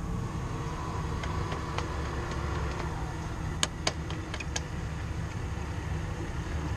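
A vehicle engine idling steadily with a low rumble, with a few light, sharp clicks a little past the middle.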